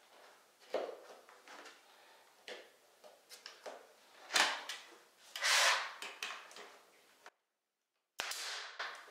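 Primed MDF baseboard being pushed and fitted by hand into an inside corner: a run of light taps and knocks of the board against the wall and floor, with two louder scraping rushes in the middle. Near the end, after a brief dropout, a sharp crack followed by a short hiss.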